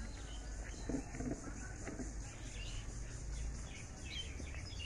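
Rural outdoor ambience: a few short bird chirps over a steady high insect hum and a low steady rumble.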